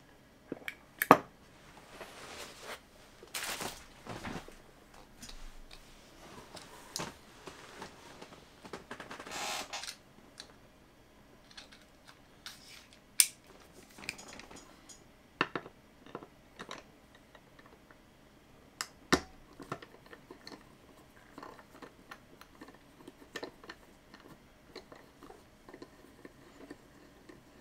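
Hands handling the opened metal casing of a hard drive and small tools on a cutting mat: scattered light clicks and taps of metal, with a few short scraping sounds in the first ten seconds. The sharpest click comes about a second in.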